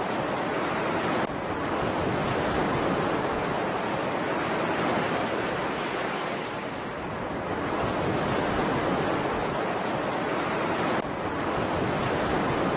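Ocean surf: a steady wash of waves that swells and eases slowly, with a faint click about a second in and another near the end.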